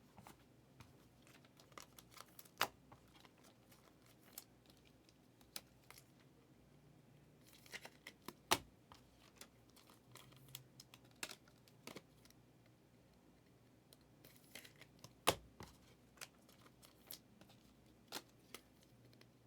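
Trading-card packs and cards being handled: faint wrapper tearing and crinkling with scattered sharp clicks, three of them louder, as cards are knocked together and set down.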